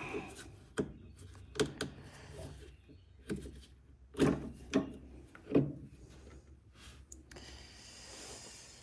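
Scattered clicks and knocks of plastic and metal parts being handled and pried loose while a part is taken off a top-load washer's drive underneath, with a rubbing scrape near the end.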